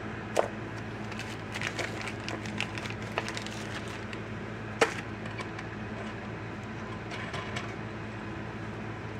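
Small metal nuts and washers clicking and a plastic hardware bag rustling as hands pick out a nut, with sharp clicks scattered through, the loudest just under half a second in and near five seconds, over a steady low hum.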